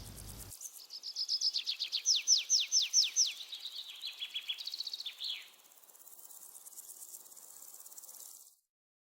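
Bird song: a quick run of high notes that each slide downward, then a fainter high trill that cuts off suddenly near the end.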